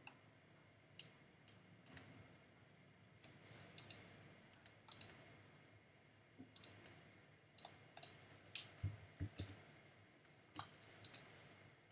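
Faint, irregular computer mouse clicks with a few keyboard keystrokes, many clicks coming in quick pairs.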